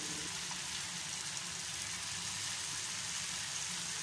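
Chickpeas and onion-tomato masala frying in a kadai: a steady sizzling hiss.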